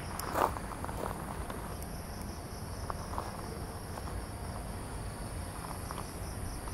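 Steady high-pitched chorus of crickets or similar insects, with one footstep crunching on gravel just after the start and a few fainter steps later, over a low rumble.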